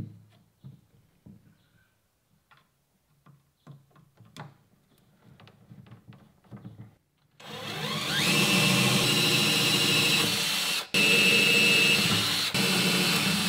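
Faint taps and handling for several seconds, then a cordless drill spins up with a rising whine and runs steadily as it drills hinge screw holes into the edge of a gas bottle box. It stops briefly just before eleven seconds and then runs again until near the end.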